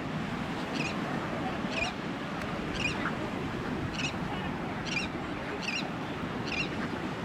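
A bird calling over and over with a short high chirp, about once a second, over steady surf and wind.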